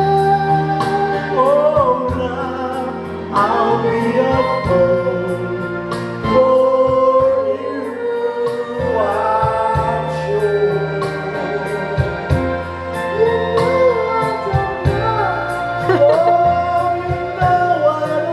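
A slow song: one voice singing a gliding melody over steady instrumental backing.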